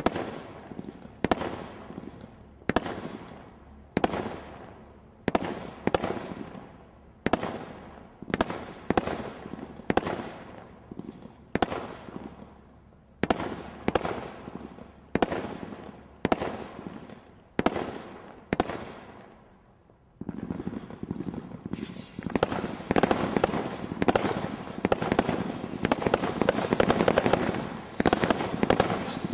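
Brothers 'The God Father 2' firework display kit firing: single shots bang in steady succession, a little more than one a second, each with a short fading crackle. After a brief lull about 20 seconds in, it breaks into a dense, rapid barrage with a high whistle over it.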